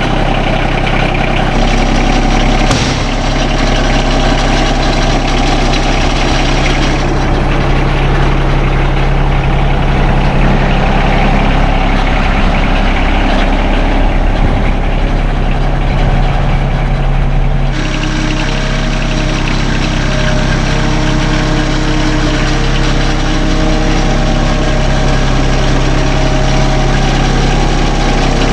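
John Deere 2320 compact tractor's three-cylinder diesel engine running steadily just after starting. Its tone shifts slightly about two-thirds of the way through.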